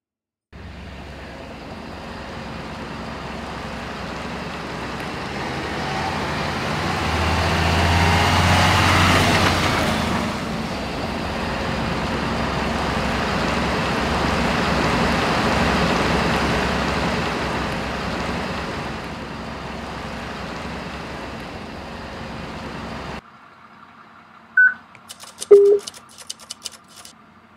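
A fire engine driving by: engine and tyre noise that swells, peaks, fades and then cuts off. Near the end come two short beeps and a few clicks from a digital handheld radio.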